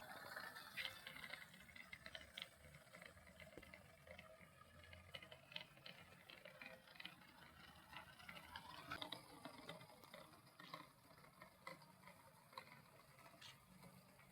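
Near silence: faint hiss with scattered light clicks at irregular intervals.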